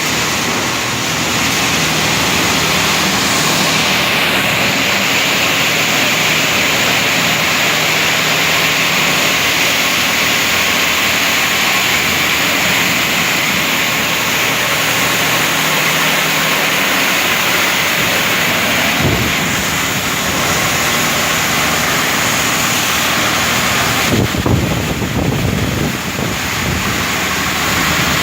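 Automatic heavy-vehicle wash machine running: a loud, steady rushing noise over a low motor hum, turning rougher and more uneven for a couple of seconds near the end.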